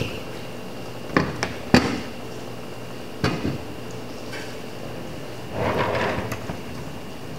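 Several sharp knocks and clacks of screen-printing gear being handled: about a second in, three come close together, and one more follows a couple of seconds later. Near the end there is a longer rattling scrape as a wheeled flash-cure dryer is pulled across the printing table.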